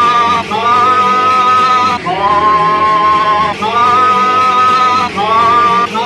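Live rock music: a male singer holding a series of long sung notes, each about a second and a half with brief breaks between, over electric guitar.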